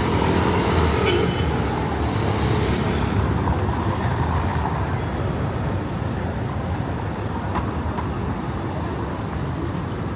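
Road traffic on a city street, a vehicle passing near the start and the steady rumble of traffic easing a little afterwards.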